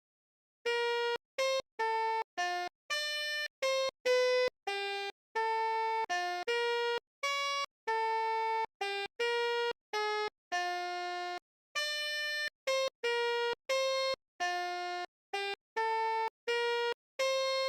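Telolet basuri horn, the multi-trumpet Indonesian bus horn, playing an ice-cream seller's jingle: a melody of short and long horn notes with brief silent gaps between them, starting about half a second in.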